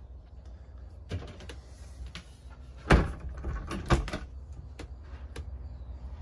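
Interior door of a 2003 Bailey Ranger caravan being shut: two loud knocks about a second apart in the middle, with smaller bumps and clicks around them.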